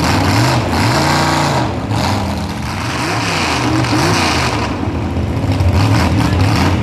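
1969 Ford Bronco mud truck's engine revving hard as it ploughs through a mud bog, its pitch surging up and falling back again and again as the throttle is worked.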